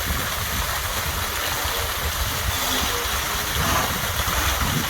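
Small, low-flowing waterfall pouring steadily onto rock and into a pool, heard close up as a constant rushing splash with a low rumble.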